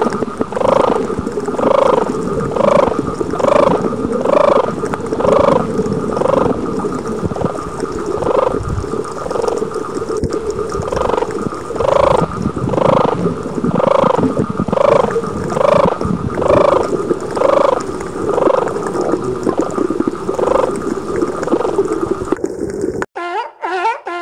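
An animal's repeated croaking calls, about one and a half a second, each a short pitched call that rises and falls, over a steady hiss. The series cuts off abruptly about a second before the end, and a different sound starts.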